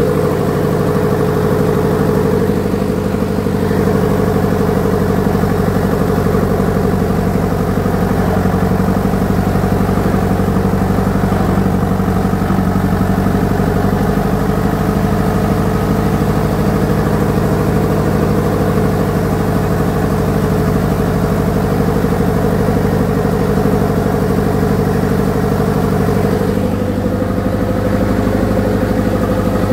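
Ford Major tractor's four-cylinder diesel engine running steadily as the tractor creeps downhill in a low gear, its note shifting slightly near the end.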